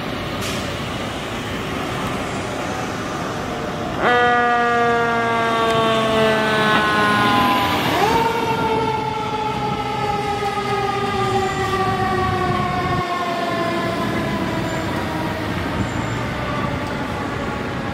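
Montreal fire department heavy rescue truck sounding its siren as it passes. The wail comes in suddenly about four seconds in and slides slowly down, swoops up sharply about four seconds later, then winds slowly down and fades as the truck moves off.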